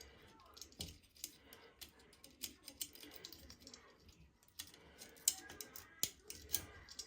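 Irregular light clicks and taps of small tools and parts being handled during work on a washing machine, with a sharper knock about five seconds in.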